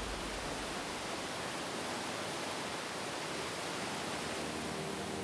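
Underground cave river rushing over rapids: a steady, even rush of water. Faint music begins to come in near the end.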